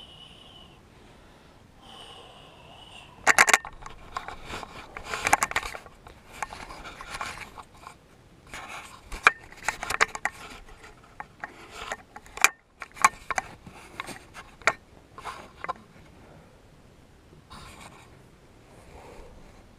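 Large latex balloon squeaking and scraping as a person sits and shifts on it. Two thin high squeaks in the first couple of seconds, then irregular rubbing and scraping for about twelve seconds, loudest about three and a half seconds in, dying away near the end.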